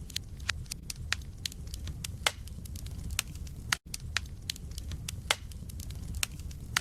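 Wood fire burning in a fireplace, logs crackling with irregular sharp pops and snaps, several a second, over a low steady rumble. The sound drops out for a split second about halfway through.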